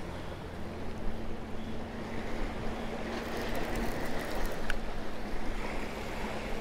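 Waves washing against the jetty's rocks, with wind on the microphone and a steady low hum under it.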